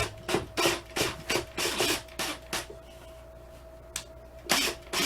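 A run of short, irregular rubbing and scraping strokes, about a dozen in the first two and a half seconds, then a pause and one more near the end, over a steady faint hum.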